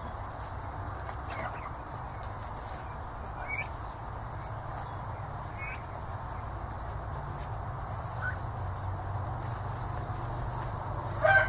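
Young turkeys feeding on grass, giving a few short, high peeps spaced a couple of seconds apart. Near the end a louder, drawn-out bird call with a slowly falling pitch begins.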